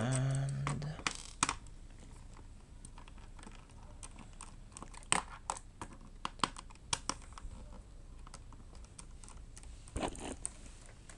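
Irregular small clicks and taps of a screwdriver backing screws out of a laptop's plastic bottom case, with screws and tool being set down. A brief voiced murmur right at the start.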